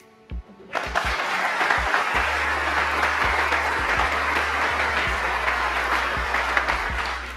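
Audience applauding in a snooker arena, starting suddenly about a second in and breaking off near the end.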